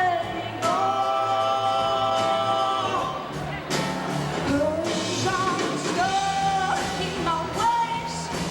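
Live band playing with a lead singer, heard through a camcorder's built-in microphone. The singer holds one long note from about a second in, over bass and drums.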